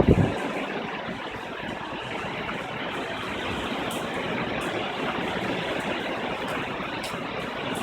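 Steady rushing noise of hurricane wind and rain, with a loud low thump right at the start.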